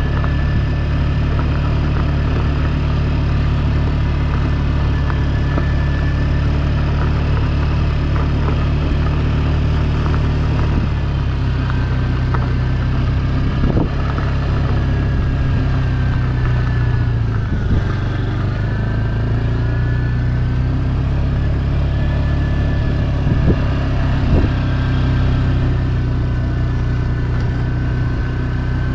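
Small moped engine running steadily while being ridden, heard close up from the rider's position. Its note shifts slightly with speed a little over ten seconds in and again partway through.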